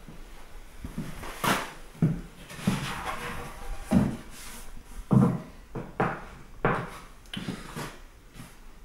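Long wooden boards knocking and thudding against each other as they are lifted and laid onto a stack of glued boards and shuffled into line: about nine irregular knocks, the loudest about five seconds in.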